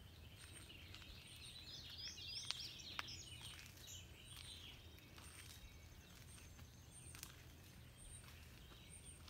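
Faint outdoor ambience with birds chirping, a quick run of chirps in the first half, over a steady low hum. A soft high tick repeats at an even pace.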